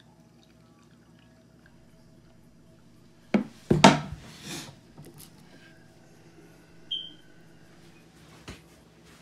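Quiet room tone, then two sharp knocks and clunks a little over three seconds in as a personal blender cup and a juice bottle are handled on a table, followed by softer rustling. A brief high chirp comes near seven seconds in and a small click follows about a second later.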